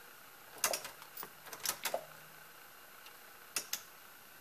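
Ignition key clicking as it is turned off and on, in short clusters of clicks about half a second in, around a second and a half to two seconds in, and a pair near the end. No fuel pump prime is heard: the newly fitted 255 in-tank fuel pump is not priming on this key cycle.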